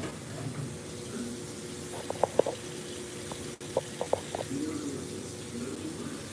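Dishwashing at a kitchen sink: water running from the tap while dishes and utensils clink, a few light clinks about two seconds in and again around four seconds, over a steady low hum.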